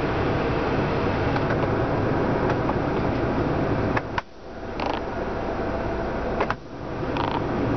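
Heater blower running steadily on a low engine hum in a 2006 Subaru Sambar's cab, with the plastic heater control levers slid and clicked twice, about four seconds in and again near six and a half seconds. After each click the air noise drops suddenly and then builds back up.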